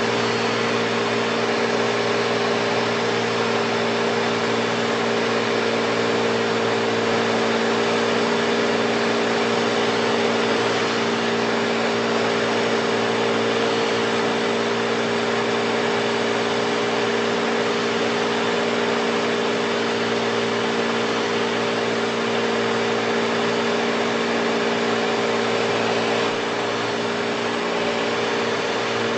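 A light propeller airplane's engine and propeller drone steadily, heard inside the cabin. It is a constant hum with a couple of steady tones over a rushing noise.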